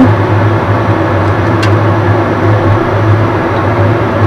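Steady low mechanical hum over a rushing noise, with a faint click about one and a half seconds in.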